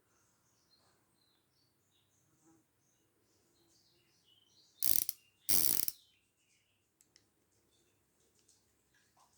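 Antique 7 mm transitional revolver's action being worked: two loud ratcheting clatters about half a second apart, the second longer, about five seconds in. Faint bird chirps sound in the background.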